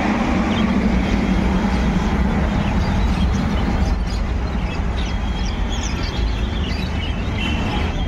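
Steady loud rumbling noise, with faint high chirps of small caged birds, Java sparrows and cockatiels, coming in from about halfway through.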